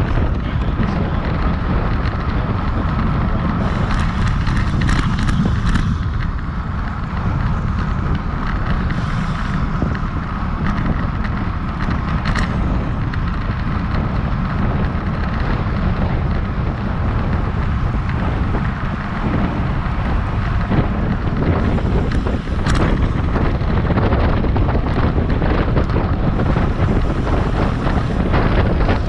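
Wind buffeting a handlebar-mounted GoPro's microphone on a road bike racing at about 25 to 28 mph: a loud, steady rumble, with a few sharp clicks along the way.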